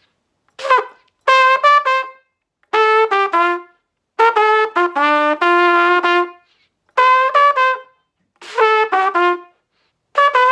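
Mendini trumpet played with a small Cecilio 7C mouthpiece: a run of short phrases of quick tongued notes, about seven in all, with brief breaks for breath between them.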